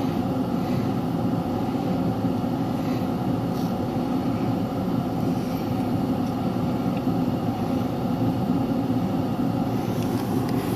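A car running, heard from inside the cabin: a steady low engine drone with road or air hiss and no change in level.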